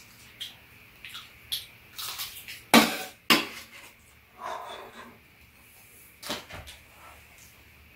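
Spoons and chopsticks clinking and scraping against a frying pan and bowls during a meal, in scattered short knocks, with the two loudest clinks close together about three seconds in.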